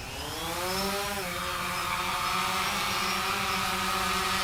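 Quadcopter drone's motors spinning up, their pitch rising for about a second, then running at a steady pitch.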